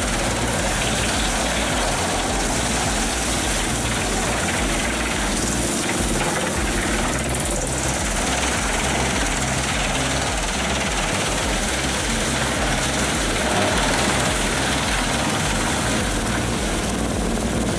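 A large wood chipper running steadily under load, its engine and drum making a continuous loud noise over an uneven low rumble.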